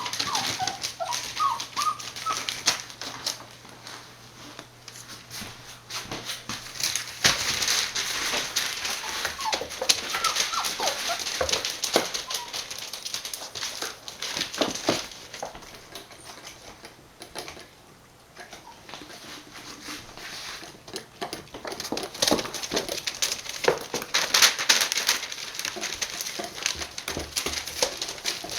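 Six-week-old border collie puppies whimpering, with short high squeaks near the start and again about ten seconds in, over constant scuffling and scratchy rustling as they move about.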